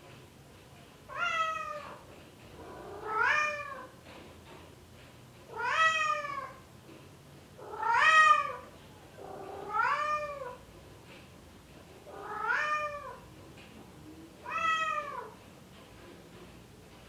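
Male Bengal cat meowing repeatedly, seven drawn-out calls about every two seconds, each rising and then falling in pitch: the mating call of a tom in heat calling for a female.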